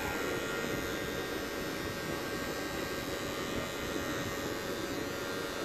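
Wahl hair clipper running with a steady hum as it cuts hair close at the side of the head, its blade lever set at zero.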